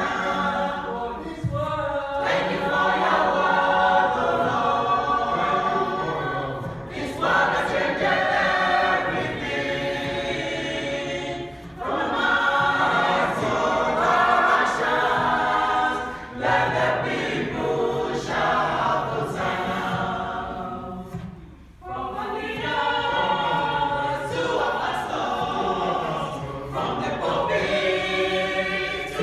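Youth choir singing in harmony into handheld microphones, in phrases of about four to five seconds with short breaks between them.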